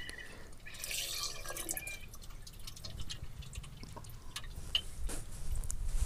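Water poured from a small steel bowl onto a stainless steel gas stove top, splashing and dripping as the Pitambari cleaning powder is rinsed off. Faint scattered clicks run through it.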